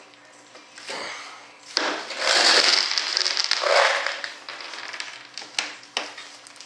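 Small metal fasteners poured out of a coffee canister onto a workbench, a dense rattle lasting about two seconds, followed by scattered light clicks as they are picked over.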